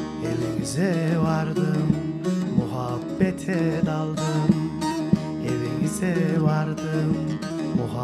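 Acoustic Turkish folk music instrumental: a bağlama (long-necked saz) is plucked and strummed together with another string instrument, the melody sliding between notes, with no singing.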